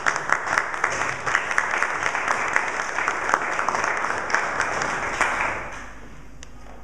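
Audience clapping, a dense patter of many hands that dies away about five and a half seconds in.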